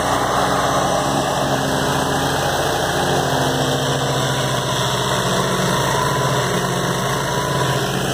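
Vermeer SC292 stump grinder's engine running steadily as the machine grinds out a large cottonwood root.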